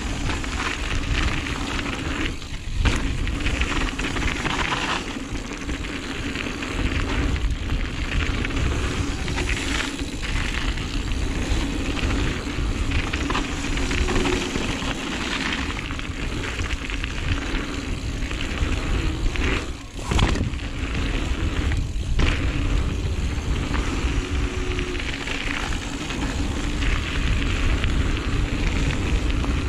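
Giant Reign 1.5 GE mountain bike riding fast down a gravel flow trail, heard through an action camera's microphone: heavy wind buffeting, tyres rumbling and the frame and parts rattling over bumps. There are occasional sharper knocks, the strongest about two-thirds of the way through.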